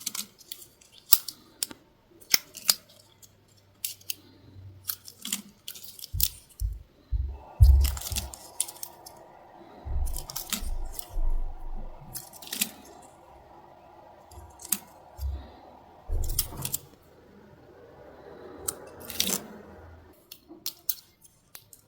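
Close-up handling of stationery and its packaging: irregular sharp clicks, taps and crinkles, with a few low thumps as things are set down.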